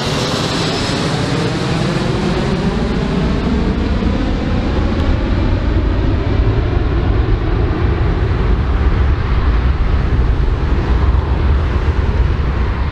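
Four-engine jet airliner flying away: a loud, steady jet engine roar with a deep rumble that grows stronger, and several whining tones that fall in pitch over the first few seconds.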